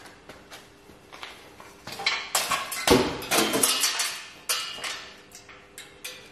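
A burst of clattering and knocking from hard objects being handled, dense and loudest from about two to four and a half seconds in, with scattered lighter clicks before and after, over a faint steady hum.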